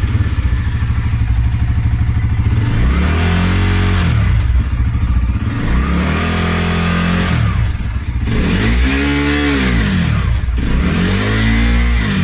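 Bajaj Pulsar NS400's single-cylinder engine running and revved up and back down four times, each blip a rising then falling pitch. The owner says an abnormal noise comes in once the revs reach 3–4 thousand RPM.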